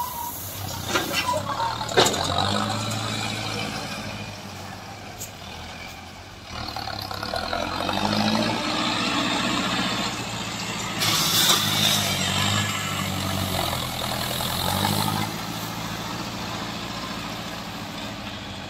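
Tractor diesel engine of a tractor-mounted front-end loader running and revving as the loader works. Gravel rushes and clatters near the start as a bucket load is tipped into a dump truck, and there is another rush of gravel a little after eleven seconds as the bucket digs into the stone pile.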